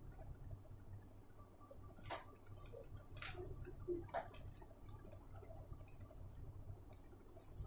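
Paintbrush flicking short grass strokes onto paper, heard as a few light ticks and taps, the clearest about two and three seconds in, over a steady low hum.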